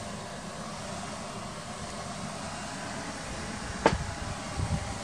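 Steady background noise, with one sharp click nearly four seconds in and a couple of dull low thumps just after: handling noise from the camera being swung around.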